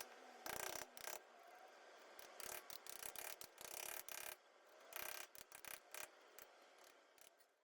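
Faint, irregular taps and scrapes of a cold chisel working into stucco, a dozen or so light strikes and rubs with short pauses between.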